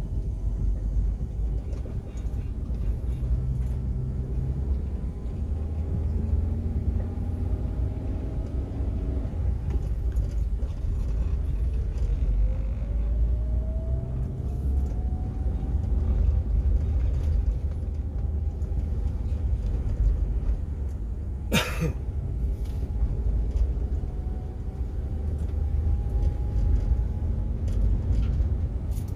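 A car on the move: a steady low rumble of engine and road, with the engine note rising twice as it speeds up. One short sharp knock comes about three quarters of the way through.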